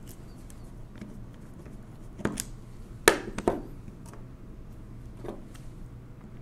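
Sharp metallic clicks and knocks from handling the stripped-down mechanism of a 1920s Monroe Model K mechanical calculator: one a little after two seconds in, the loudest two close together around three seconds in, and a lighter one past five seconds.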